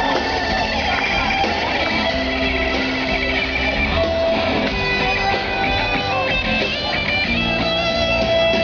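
Hard rock song playing loudly: an instrumental passage led by electric guitar, with no singing.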